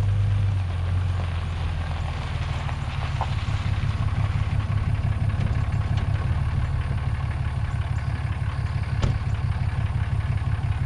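Pickup truck engine running with a steady low rumble.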